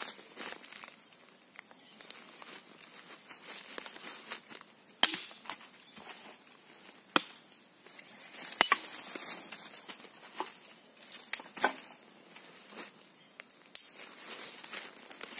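Hatchet chopping dry branches for firewood: a dozen or so irregular sharp knocks, the hardest blows about five and nine seconds in. A steady high insect drone runs underneath.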